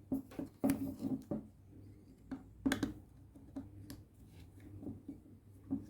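Small screwdriver working at a car door lock mechanism: scattered light clicks and taps, about one a second, the sharpest nearly three seconds in, over a faint steady low hum.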